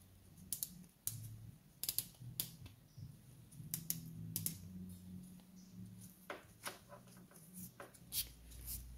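Light, irregular plastic clicks and knocks from the black plastic spray lance and nozzle of a hand pressure sprayer being handled, over a faint low hum.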